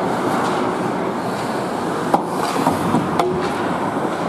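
Ice hockey play on an indoor rink: a steady wash of skates on the ice and arena noise, broken by two sharp clacks, the louder one about two seconds in and another about a second later.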